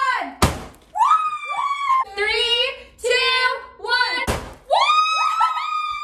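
Large confetti-filled balloons popped with a knife: two sharp bangs, about half a second and about four seconds in. Around them, excited high-pitched squeals and shrieks from two young women.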